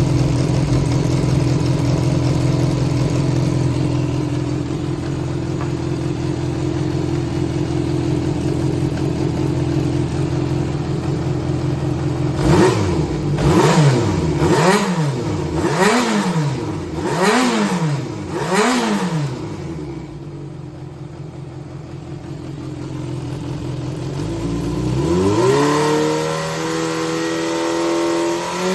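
Yamaha XJR400 (4HM) inline-four engine idling steadily, then revved five times in quick succession, each rev rising and falling about a second apart, settling back to a quieter idle, and brought up to a steady raised speed near the end. It runs smoothly with no abnormal noise, which the seller takes for an engine in excellent condition.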